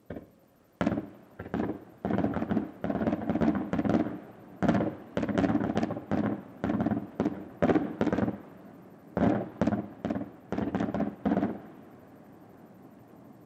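Aerial firework shells bursting in a rapid, irregular volley of bangs, several a second at the densest, each with a short echoing tail. The volley stops a couple of seconds before the end, and one more bang follows at the very end.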